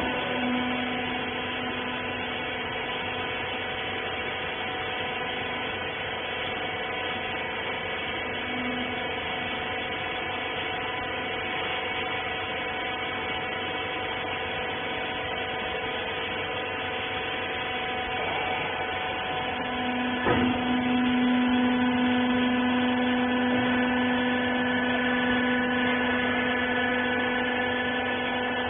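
Rag baler machine running with a steady electric motor and pump hum of several fixed tones. About twenty seconds in there is a single knock, and the lower tone then grows louder.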